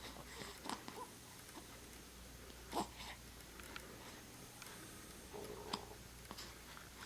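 A pet hiccuping: three short, sudden hiccups about two to three seconds apart, the middle one the loudest.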